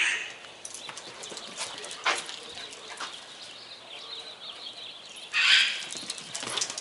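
Dogs running on a concrete patio, their claws and paws clicking and pattering in irregular bursts. A short, loud, high-pitched burst of sound comes about five and a half seconds in.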